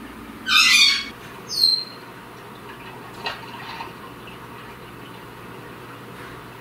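Goffin's cockatoo giving one loud, harsh screech about half a second in, followed by a short high whistle that glides downward.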